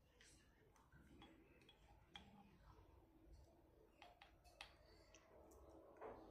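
Near silence with a faint steady hum and a few scattered light clicks, the sharpest about a second in, about four seconds in and near the end.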